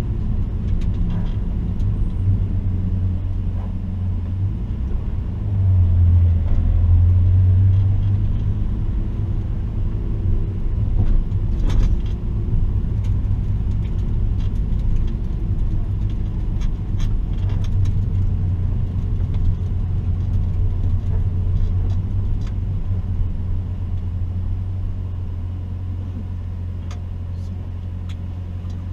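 BMW E46's engine running at low revs, a steady low hum heard from inside the cabin, swelling briefly about six seconds in. A few light clicks sound now and then.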